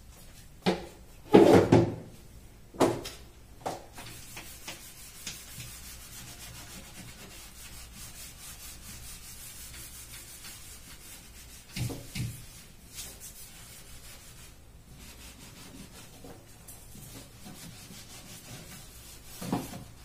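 A nearly dry cleaning sponge scrubbing the inside of a kitchen cabinet, a steady scratchy rubbing through the middle. A few knocks and thumps against the cabinet, the loudest about a second and a half in, another near the middle and one near the end.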